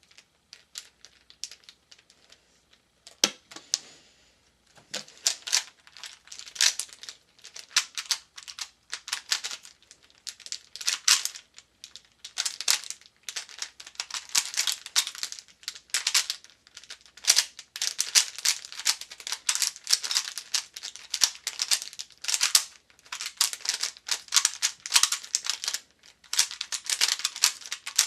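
Rubik's brand 3x3 cube being turned fast in a speedsolve: rapid plastic clicking and clacking of the turning layers, in bursts with short pauses. A few light ticks come first, and the fast turning starts about three seconds in.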